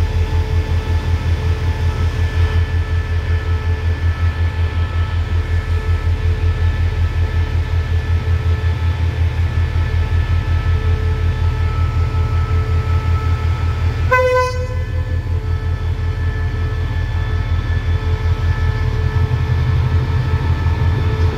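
State Railway of Thailand diesel-electric locomotive hauling a container freight train past, its engine giving a low, rapidly pulsing throb with steady whining tones above. A brief horn toot sounds about fourteen seconds in.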